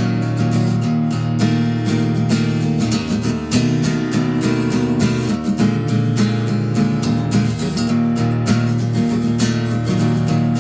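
Acoustic guitar strummed in a steady rhythm: the instrumental introduction of a song.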